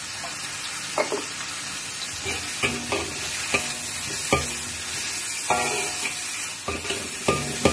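Diced chicken sizzling in hot oil in a wok while a metal spatula stirs and scrapes it. The spatula strikes the wok about once a second, each stroke giving a short metallic ring over the steady hiss.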